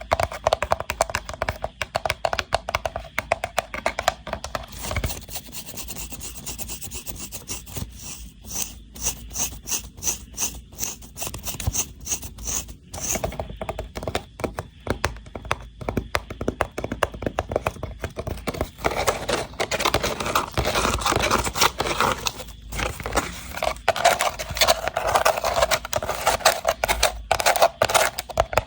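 Woven rattan box being scratched and rubbed, a dense run of quick scratches and light taps on the wicker.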